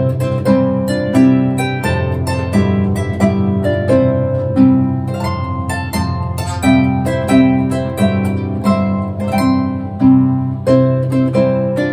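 Background harp music: a quick, even run of plucked notes over ringing low notes.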